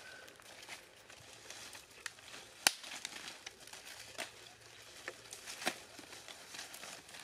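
Leafy branches and dry leaf litter rustling and crackling as they are handled, with scattered light snaps; one sharp click about two and a half seconds in is the loudest.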